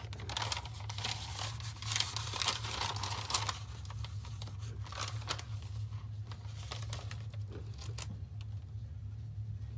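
Crinkling and rustling of clear self-adhesive contact film and its paper backing being handled and laid back down, busiest in the first few seconds and dying away near the end, over a steady low hum.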